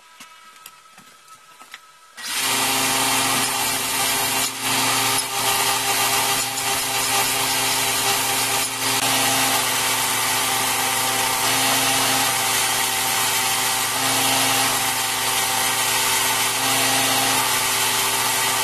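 Belt grinder running with a steel tomahawk head pressed against the abrasive belt, grinding it to shape before heat treat. It is a loud, steady grinding hiss over the motor's hum, starting abruptly about two seconds in.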